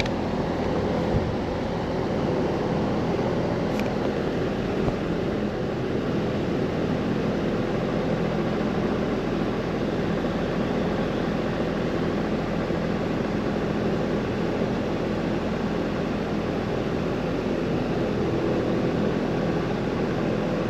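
Air-conditioning condenser unit running with its fan motor giving a steady hum and whoosh, while the compressor stays silent and makes no attempt to start. There are a couple of light clicks about one and five seconds in.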